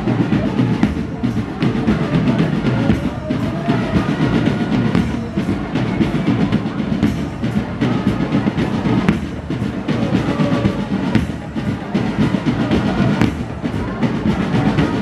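Marching band drums, bass drum among them, playing a steady beat.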